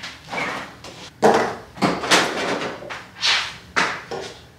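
Kitchen handling sounds: a refrigerator door being opened and shut and baking ingredients set down on a stone countertop, a run of knocks and thuds about one every half second.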